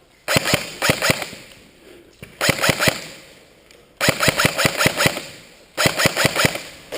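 Airsoft electric rifle firing several short full-auto bursts, each a rapid string of sharp clicks, with brief pauses between them.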